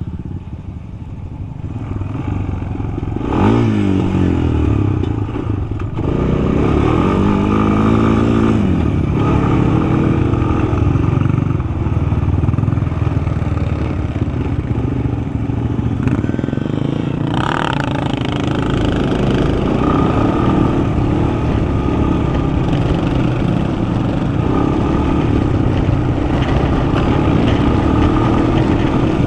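Yamaha sport quad's engine, heard from the rider's seat. It revs up sharply about three seconds in, then runs on at changing throttle, its pitch rising and falling as the quad is ridden.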